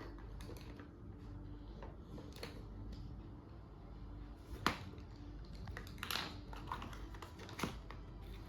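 Scattered light clicks and taps of plastic toy kitchen pieces being handled, a few sharp knocks standing out over a faint room hum.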